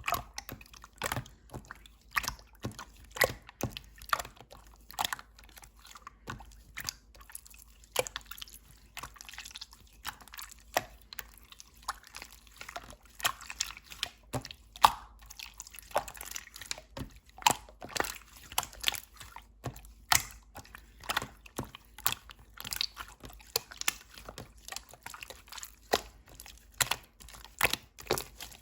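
Slime being squeezed and pressed by hand, making irregular wet clicks and pops, about one or two a second.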